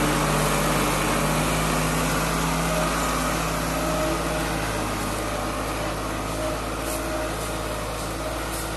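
New Holland 6510 4x4 tractor's diesel engine running steadily under load as it pulls a two-bottom mouldboard plough, slowly fading as the tractor moves away.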